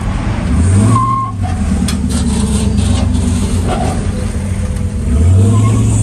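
Truck engine running loudly, revved up briefly twice: about a second in and again near the end.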